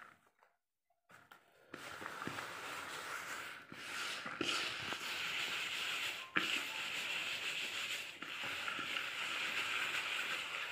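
A hand rubbing and mixing crumbly rice flour in a plastic basin: a steady gritty rustle that starts a couple of seconds in, with a sharp click about six seconds in.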